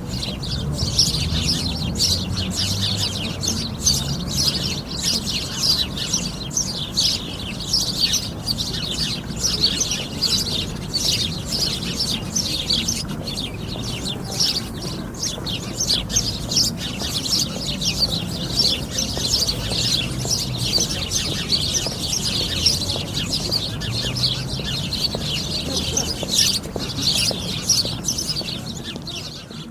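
A flock of sparrows chirping: many short chirps overlapping in a dense, continuous chatter, with a low rumble underneath.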